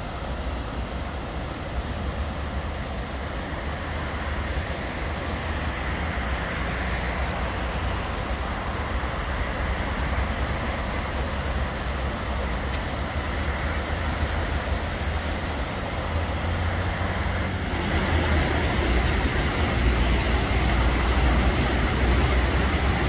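Steady road traffic noise: a continuous hiss with a deep rumble underneath, growing louder about three-quarters of the way through.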